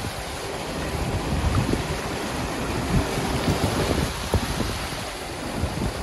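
Muddy floodwater rushing and churning across a road in a steady noisy wash, with irregular low surges.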